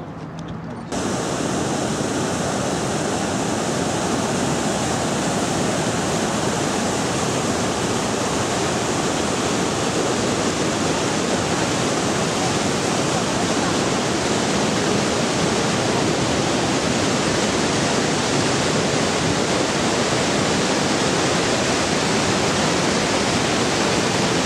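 Loud, steady rush of Bridalveil Fall and its creek in very high flow, whitewater and spray. It starts abruptly about a second in and holds evenly.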